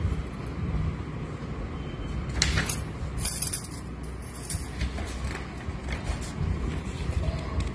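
Steady low background rumble with a few scratchy rustling bursts about two and a half to four and a half seconds in, like paper handling as the notebook and phone are moved.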